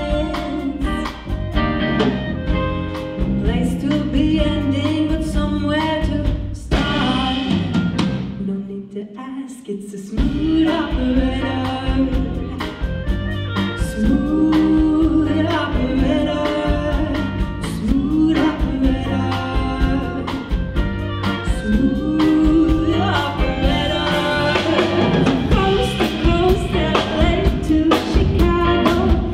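Live rock band playing with sung vocals: drum kit, electric bass and electric guitar. A few seconds in, the band briefly drops away to a thin, quiet moment, then the full band comes back in.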